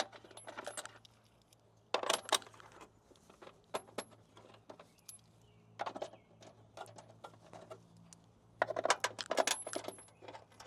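Small metal tools and hardware clinking and rattling as they are handled, in scattered clicks with a busier cluster near the end; some clicks leave a short high metallic ring.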